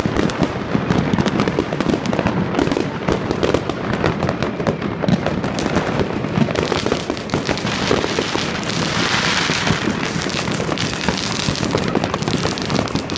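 Many fireworks going off at once: a dense, irregular crackle of bangs and pops, with a spell of hiss about nine seconds in.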